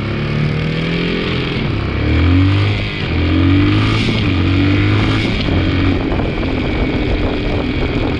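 2002 Yamaha 225 motorcycle engine running, blipped up in revs several times from about two seconds in. The bike is being checked for a clunking noise that the owner traces to the clutch area and suspects is in the clutch or transmission.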